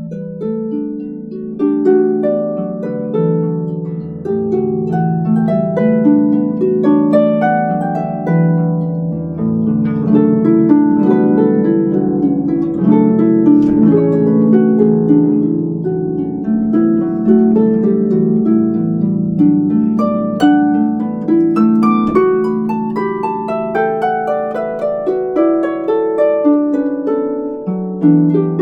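Solo concert harp playing a flowing passage of plucked notes that ring on over one another, with low bass notes sustaining beneath.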